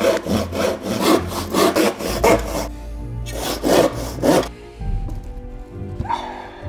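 Hand saw cutting a plywood board in quick back-and-forth strokes. There is a brief pause after about two and a half seconds, then a few more strokes, and the sawing stops about four and a half seconds in.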